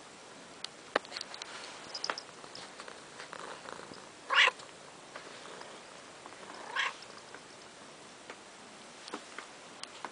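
A kitten making two short, high mews, the first about four seconds in and louder, the second a couple of seconds later. Faint scattered clicks run between them.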